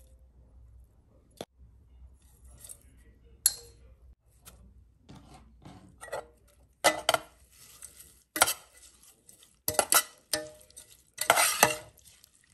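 A metal spoon mixing moist minced meat, onion and herbs in a stainless steel saucepan, clinking and scraping against the pot. A few single clinks come first, then a run of stirring and scraping from about seven seconds in, loudest near the end.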